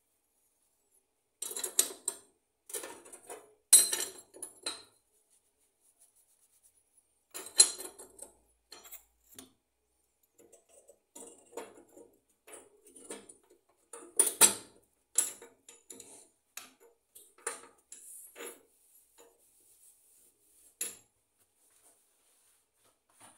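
Metal gas-stove burner heads and caps clinking and clattering as they are handled and set back onto the cooktop. The knocks come irregularly, several louder ones among lighter taps, the loudest about halfway through.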